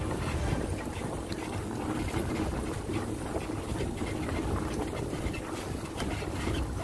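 Steady low rumble of a dog-team rig rolling over a dirt trail behind six running huskies, with wind on the phone's microphone and faint scattered clicks.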